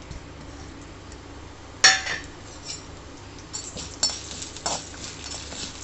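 A metal spoon clinks once sharply against a cooking pan, with a short ring, then a run of lighter ticks and taps follows as whole spices go in to be roasted in the hot oil.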